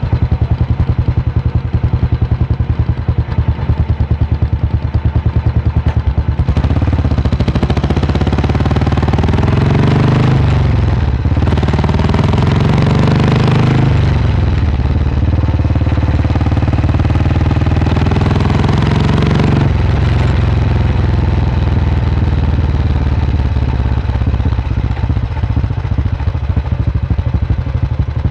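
Vintage single-cylinder motorcycle engine running hard on the road, heard close up with its rapid firing beat. From about seven seconds in the revs climb, dip and climb again several times, then drop back to a steadier note about twenty seconds in.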